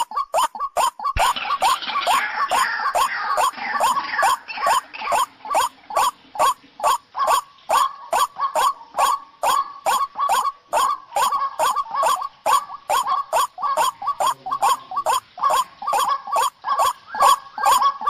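White-breasted waterhen (ruak-ruak) calls played as a bird-trapping lure: fast, evenly repeated croaking calls, about three a second, with a brief break about a second in.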